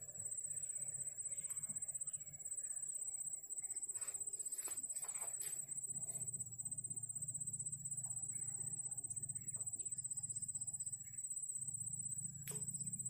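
Insects trilling: a high, steady, fast-pulsing buzz that goes on throughout, over a low rumble, with a single sharp click near the end.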